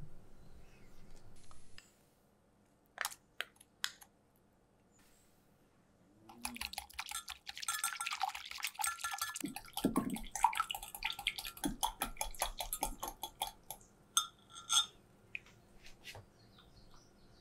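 A spoon stirring thin sauce in a glass measuring cup: a few sharp clicks, then several seconds of rapid small clinks and liquid swishing.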